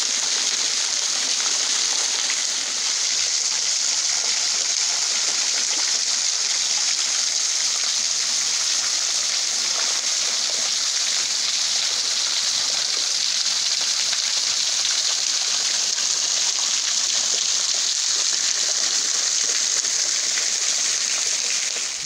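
Low-water waterfall: a thin stream falling free off a rock ledge and splashing onto the rocks below as drops and spray. It makes a steady high hiss with no deep roar, because the river is nearly dry.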